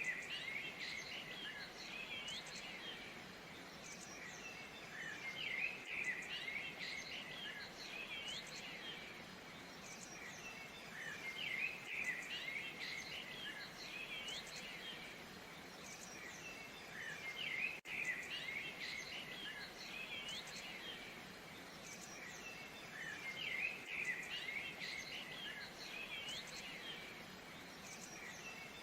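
Many birds chirping and singing over a steady background hiss, the chorus swelling every few seconds, with a brief dropout about two-thirds of the way through.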